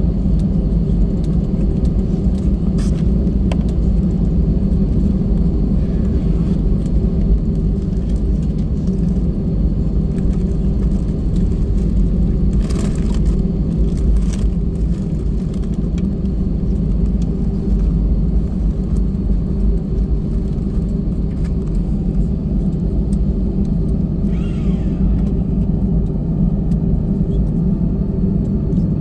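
Steady low rumble of an Airbus A320 cabin while taxiing after landing: engines at taxi idle and wheels rolling on the taxiway, with a few faint clicks.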